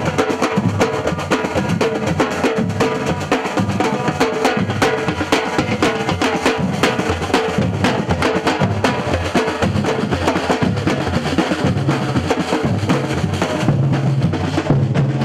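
Brazilian-style batucada percussion band drumming: deep bass drums and snare drums in a steady, driving rhythm.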